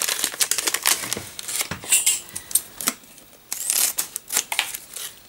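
Plastic snack wrapper crinkling and crackling with many sharp clicks as an individually wrapped waffle biscuit packet is handled and opened.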